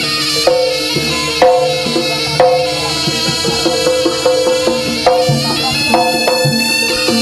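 Live jaranan gamelan music. Kendang drums and struck gamelan instruments keep a regular beat of about one stroke a second under a high, held melody line.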